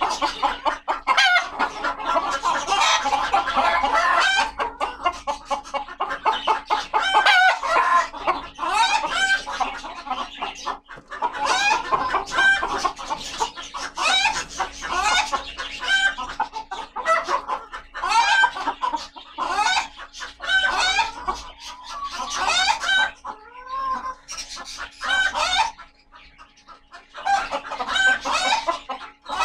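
Polish chickens, a rooster with hens, clucking and squawking almost without pause in quick, overlapping short calls, which die down briefly near the end before starting up again.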